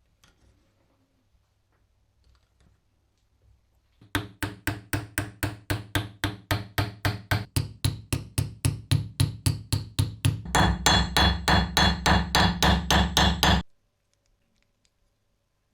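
Hammer striking metal in quick, even blows, about five a second. The blows begin about four seconds in, grow louder and ring more brightly near the end, then stop suddenly.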